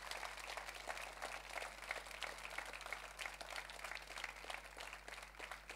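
Audience applauding: a steady patter of many hands clapping, fairly faint.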